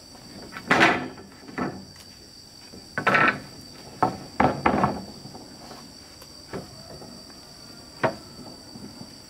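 Long sawn wooden planks being shifted and set down on a stack of boards: a series of wooden knocks and clatters, the loudest about a second in and again around three to five seconds in. Steady insect trilling runs underneath.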